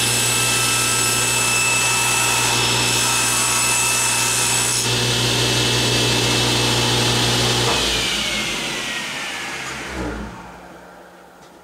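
Table saw ripping a strip off a panel of 6 mm Baltic birch plywood: the blade cuts for about five seconds, then runs free. About eight seconds in the saw is switched off and the blade winds down with a falling whine.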